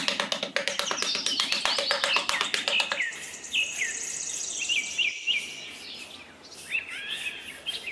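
Small metal hand trowel scraping and patting sand in rapid strokes for about three seconds, then stopping. Birds chirp throughout, with short falling chirps and a high trill.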